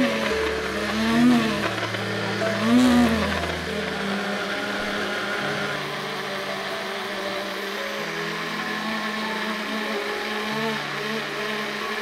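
Small DC motor of a homemade soda-can mini blender whirring as it blends a drink in its jar. It gives a few short bursts that rise and fall in pitch, then runs steadily from about four seconds in.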